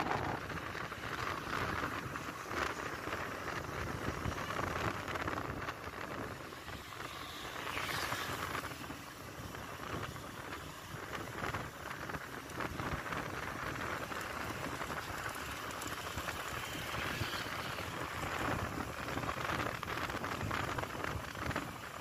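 Wind rushing and buffeting over a phone microphone, with road noise, while riding a motorcycle at speed; a steady, uneven hiss with no engine note standing out.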